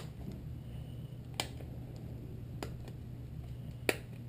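Hard plastic clicks of an OtterBox Defender phone case being unsnapped and pulled apart, four sharp clicks a little over a second apart, over a low steady hum.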